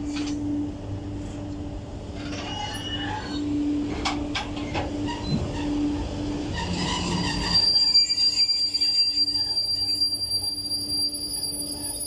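Twin VR Class Sr1 electric locomotives rolling slowly past, with a steady hum and a few clanks. From about two thirds of the way in, a thin, high-pitched wheel squeal joins and the sound grows louder.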